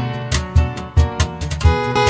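Instrumental song intro, with no singing yet: acoustic guitar strummed and picked over a steady, repeating low beat.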